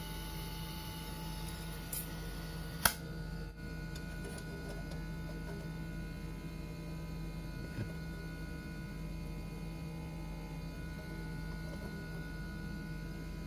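Steady low hum, like a running motor or mains hum, with one sharp click about three seconds in.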